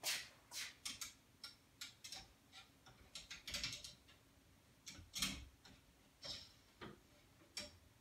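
Irregular light clicks and knocks of a hook rack being fitted by hand onto a garage door's vertical strut, with a few louder clattering knocks about three and a half and five seconds in.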